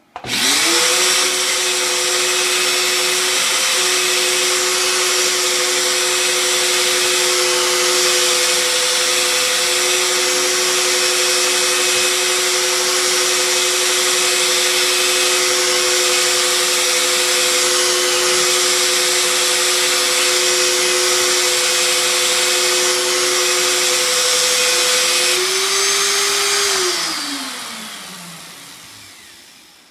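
Electric drill driving a Stripmeister wire stripper, stripping the insulation off copper wire: the motor whines up at once, runs at a steady speed for about 25 seconds, then its pitch shifts and it winds down with a falling whine as the foot pedal is let off.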